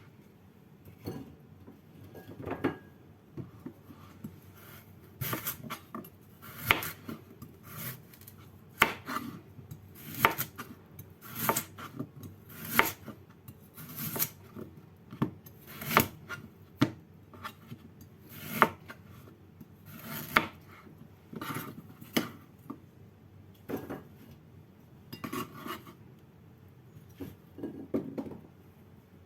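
A knife chopping on a cutting board: sharp knocks at an irregular pace, roughly one a second, some much louder than others.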